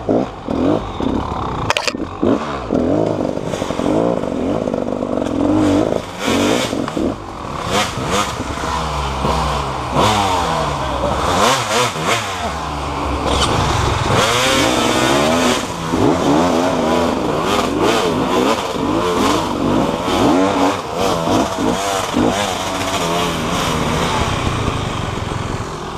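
Motorcycle engine revving up and down again and again, its pitch rising and falling throughout, with some clattering.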